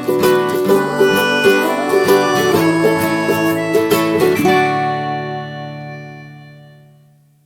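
Plucked-string instrumental music with picked notes, ending about four and a half seconds in on a held chord that rings out and fades away to silence.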